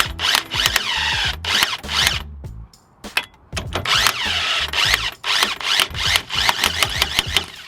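Background rock music with drums and a stepping bass line, with a brief drop about two and a half seconds in.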